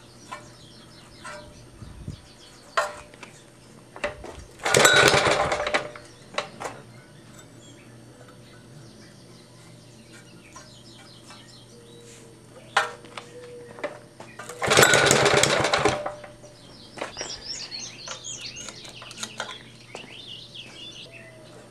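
Two rope-pull starting attempts on a 1953 Craftsman power reel mower's engine, primed with gas down the carburettor. Each is a loud burst of cranking about a second long, and they come about ten seconds apart. The engine does not keep running after either pull.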